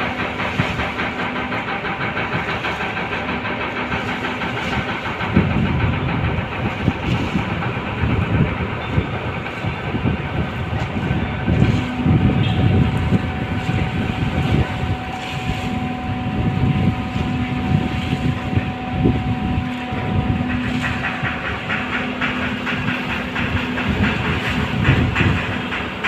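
Roll-on/roll-off ferry berthing, its diesel machinery running steadily: a continuous low rumble and hiss with a few held humming tones.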